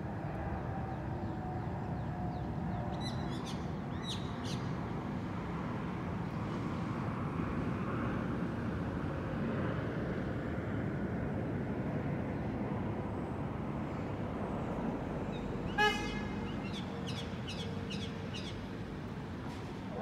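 Steady rumble of city traffic, with short, sharp bird calls from the treetops about three seconds in and again near the end. Just after the three-quarter mark comes one brief, loud, pitched note, the loudest sound in the stretch.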